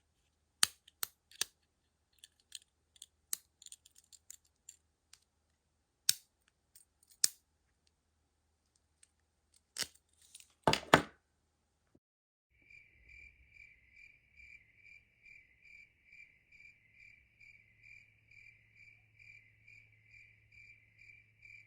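Scattered small metallic clicks and snips, with a louder clatter about ten seconds in. Then, from about halfway, steady cricket chirping at an even pitch, about two chirps a second.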